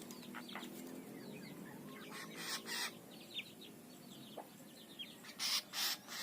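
Faint bird calls: a low, repeated call in the first couple of seconds and a few short, high chirps, with brief bursts of rustling noise.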